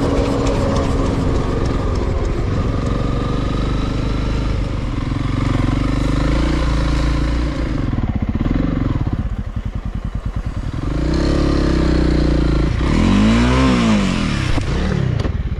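Motorcycle engine running as the bike is ridden. Its pitch rises and falls a few times near the end as the throttle is worked.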